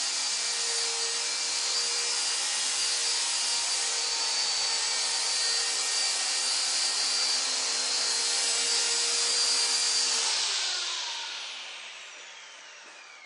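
Esky Honey Bee King V3 electric RC helicopter running with a steady high motor whine and rotor noise, then winding down about ten seconds in, its pitch falling as the rotor slows.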